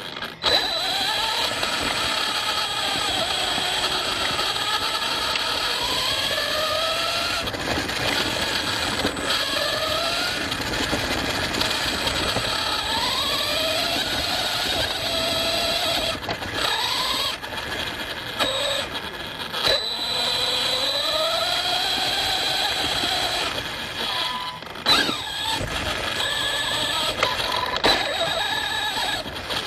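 ARRMA Fireteam 6S RC car's brushless motor whining, its pitch rising and falling with repeated bursts of throttle. Under it, a steady rattle of drivetrain and tyres over rough off-road ground, with a sharp knock about 25 seconds in.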